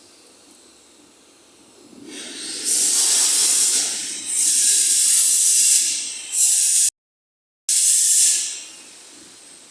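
Milling machine cutting into a metal roller: loud hissing bursts that swell and fade in several passes, with a brief cut-out of all sound about seven seconds in.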